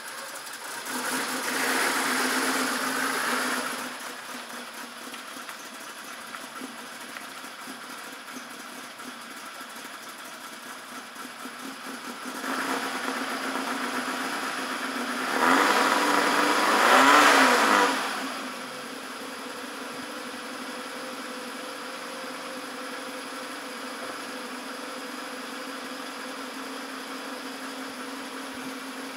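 Citroën GS air-cooled flat-four engine idling steadily. The revs rise twice, briefly about a second in and again near the middle, where the pitch climbs and falls back before it settles to idle.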